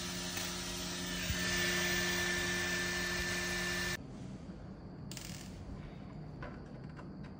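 Bambu Lab X1C 3D printer's fans running with a steady hum and whir. A click about a second in brings in a steady whine and the level rises. The sound drops abruptly at about 4 s to a quieter hum, followed by a short hiss and a few light metallic clicks near the end.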